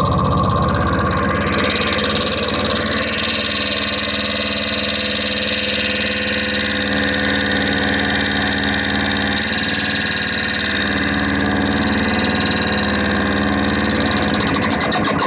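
Dense, steady electronic noise drone from a rig of noise boxes fed through overdrive pedals and a delay, many held tones layered into a thick, engine-like hum. The high end opens up about a second and a half in.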